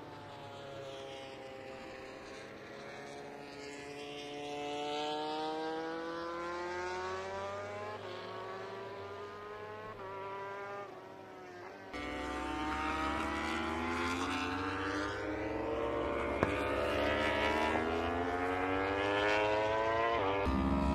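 Motorcycle engine running at speed, its pitch sliding down and back up as the rider works the throttle. About halfway through it cuts to a louder engine note with more low rumble, which rises again near the end.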